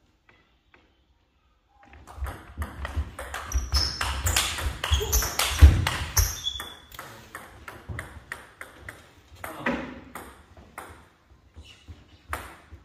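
Table tennis ball clicking back and forth off bats and table in a fast rally that starts about two seconds in, then sparser single clicks after it.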